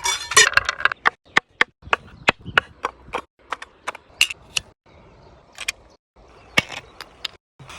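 A dense scraping burst in the first second, then a run of sharp knocks and taps at irregular intervals, about one or two a second.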